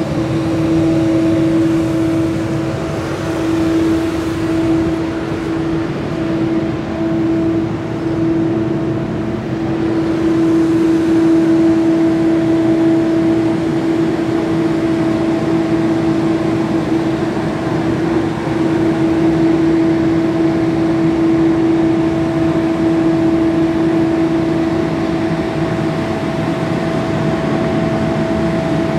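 Scania P270 street sweeper truck working, its diesel engine and sweeping gear running with a steady whine over a constant hiss of brushing on the road.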